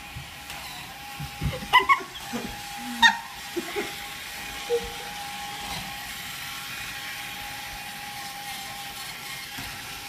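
A toddler's short, high squeals and yelps, several in quick succession about two to three seconds in, over a steady thin whine.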